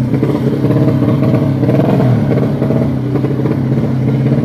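A tuned four-stroke underbone drag bike's engine running hard at high, fairly steady revs.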